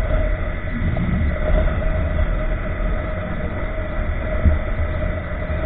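Honda motorcycle cruising at steady speed: wind buffeting and rumbling on the microphone over a steady engine hum.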